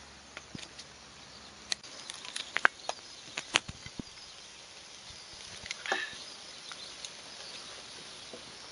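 Beef and mushrooms cooking on a charcoal grill: a faint sizzle with scattered sharp pops and clicks, most of them in the first half.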